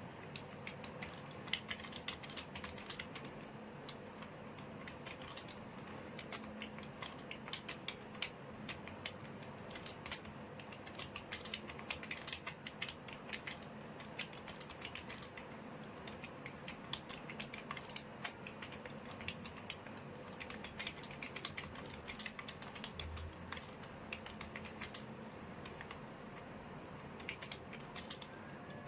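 Continuous typing on a computer keyboard: rapid, irregular key clicks at a steady pace, as in a speed typing test.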